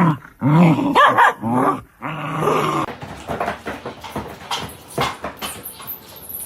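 A dog vocalizing in a run of about five loud barks and yowls, each rising and falling in pitch, over the first three seconds. After that come quieter scattered knocks and clicks.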